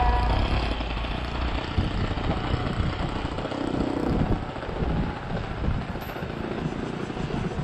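Radio-controlled model airplane flying at a distance, its engine and propeller a steady drone, mixed with wind noise on the microphone.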